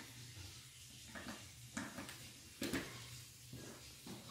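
A power plug and its cord being handled and pushed into a wall outlet: a few small clicks and knocks, the loudest a little past halfway.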